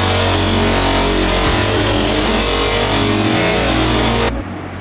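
Bench grinder running with a buffing wheel, a metal hammer head pressed against the spinning wheel to polish it. The sound cuts off suddenly near the end.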